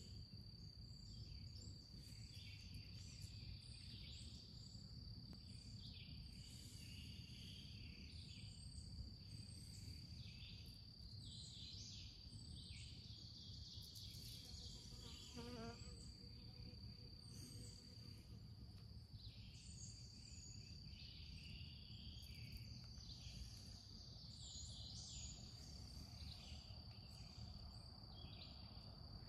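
Faint outdoor insect chorus: a steady high-pitched insect drone with scattered chirping calls over a low background hum, and one short pitched call around the middle.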